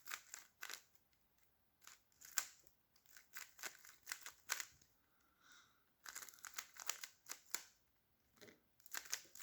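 A plastic 3x3 speed cube being turned quickly by hand: quiet clusters of light clicks and clacks as the layers snap round, with short pauses between turns. The layers turn slippery-smooth on lubricant already inside the cube.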